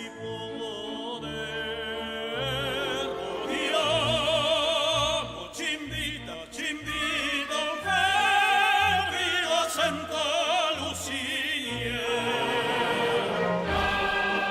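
Operatic singing with orchestral accompaniment: voices with a strong vibrato over sustained strings.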